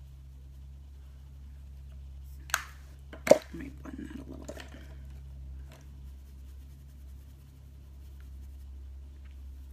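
Two sharp clacks about a second apart, followed by lighter clicking and rustling, as makeup items are set down and picked up while brushes are swapped. A steady low hum runs underneath.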